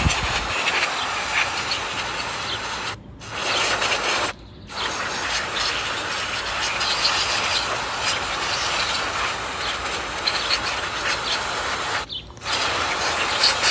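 Aerosol cleaner hissing from a can through a straw nozzle as it is sprayed onto the coil of wires of a Singer 301 sewing machine motor. It sprays in long bursts with three brief pauses. The cleaner is washing carbon and grime off the windings.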